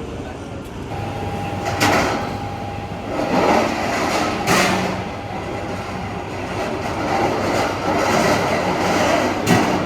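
Loud city noise: a steady rumble and hiss, broken by three sharp bangs, about two seconds in, midway and near the end.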